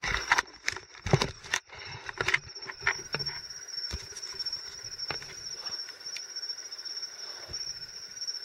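Insects trilling steadily at a high pitch in the night. Close knocks and rustles come in a cluster over the first three seconds and a few more later.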